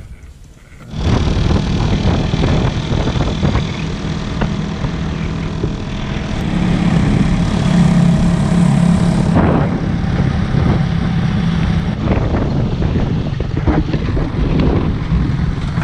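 A small engine running steadily at cruising speed, starting abruptly about a second in and getting a little louder in the middle.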